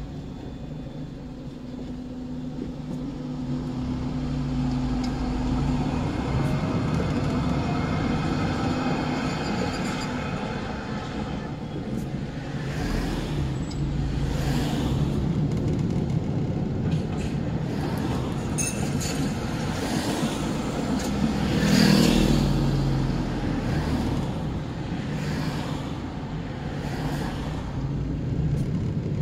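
City traffic and road noise heard from a moving car: a steady low rumble of engine and tyres, with other vehicles swelling past in the second half and the loudest pass about three-quarters of the way through.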